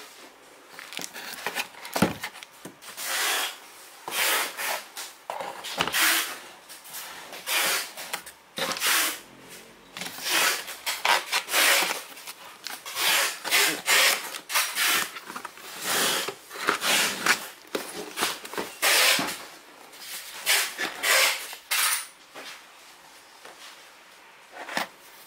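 Cardboard box, plastic bag and paper manual being handled: irregular rustling and scraping, with a sharp knock about two seconds in.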